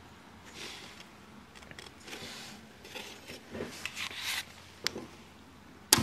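Fingers working at the carriage of an Olivetti Lettera 32 manual typewriter: faint rubbing, scraping and light clicks, then one sharp click near the end as the carriage-lock switch is flipped to free the carriage.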